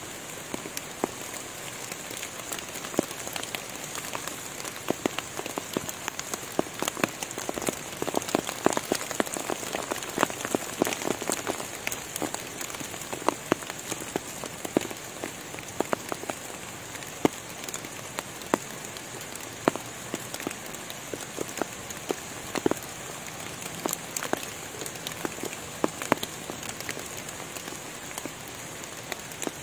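Rain falling on forest foliage and leaf litter: a steady patter with many separate drops ticking close by, thicker for a few seconds near the middle, over a steady high hiss.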